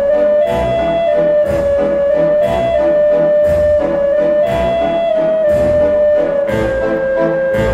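Music: a slow melody of held notes over a soft beat about once a second.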